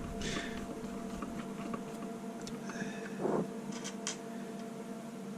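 Faint, scattered clicks and light taps of small parts and tools being handled on a workbench, over a steady low electrical hum, with one brief louder sound about three seconds in.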